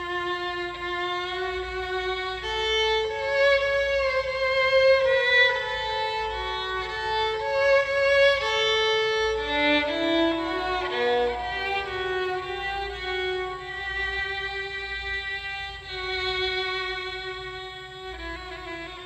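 Solo violin playing a slow melody of held notes with vibrato; a Romanian-made instrument, not yet broken in, with a smooth, mellow, dark tone.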